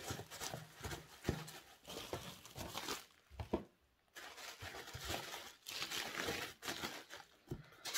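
Plastic bag of packing chips crinkling and rustling as it is handled and packed into a cardboard box, in irregular spells with a short pause about three and a half seconds in.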